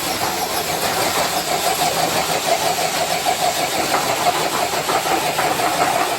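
Electric motor and geartrain of an RC crawler truck running hard and steadily under load while it pulls a sled weighted with three blocks.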